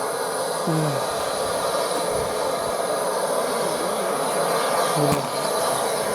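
Steam locomotive 34046 Braunton, a Bulleid West Country class Pacific, standing in steam with a steady hiss, while brief voices come through about a second in and again near five seconds, along with a single sharp click.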